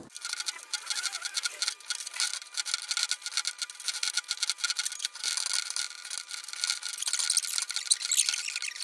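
Kitchen knife slicing raw carrot lengthwise into sticks on a plastic cutting board: a fast, continuous run of short cutting and scraping strokes against the board.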